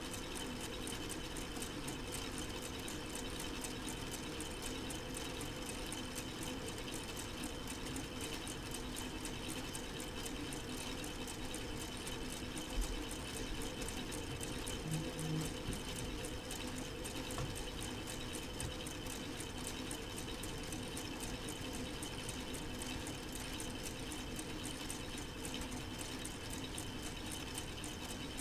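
K'nex plastic model four-cylinder engine running steadily, its plastic gears and connecting parts making a fast, even clatter over a steady hum.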